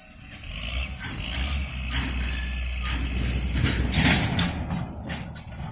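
Tank cars being shunted by a Trackmobile: a low steady engine rumble under irregular metallic clanks and knocks, about one a second, from the cars' couplers and running gear.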